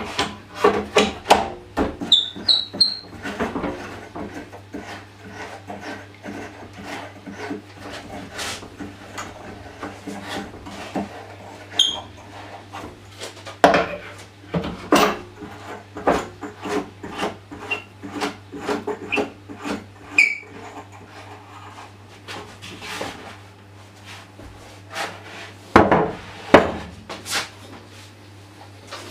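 Wooden legs being pressed onto a plywood box stand and fastened with hand-turned knobs: scattered wooden knocks, taps and rubbing, with a few short high squeaks. Two louder thumps come near the end as the stand and table saw are handled, over a steady low hum.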